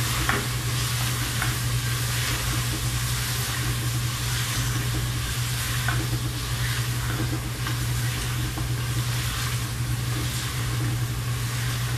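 Mutton sizzling in oil in a pressure cooker while it is stirred and scraped with a wooden spoon: bhuna over high heat, the water cooked off and the oil separating from the masala. A steady low hum runs underneath.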